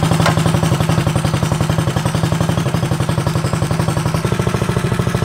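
Tillotson 212 single-cylinder four-stroke engine running steadily just after being pull-started, its firing pulses even, as it warms up. Its note shifts slightly about four seconds in.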